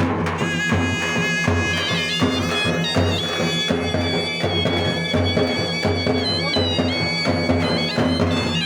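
Music: a high, sustained melody line with a few pitch changes, played over a steady low drum beat.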